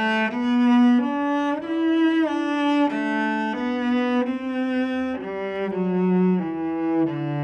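Solo cello bowed in a slow melody of sustained notes, one of them held for well over a second, with a sliding change of pitch about two seconds in. It is a passage of a mantra piece meant to awaken creativity.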